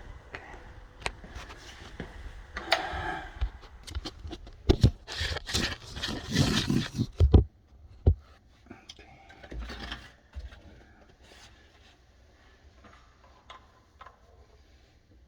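A drain pipe being cut down with a hand cutting tool: a short run of scraping strokes, then a louder, denser run of scraping and knocking that stops abruptly about halfway through, followed by a knock and lighter clicks as the pieces are handled.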